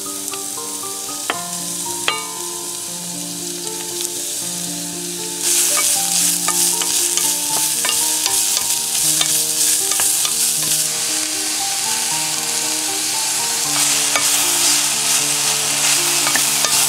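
Julienned carrot sizzling in hot sesame oil in an enamelled pot as it is stir-fried with a wooden spatula, with two sharp taps of the spatula against the pot about one and two seconds in. The sizzling grows louder about five seconds in.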